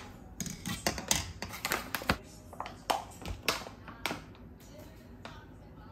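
Metal mesh sieve clinking and tapping against a glass bowl as cocoa powder is readied for dusting. It gives over a dozen quick, irregular sharp taps that stop a little after four seconds in.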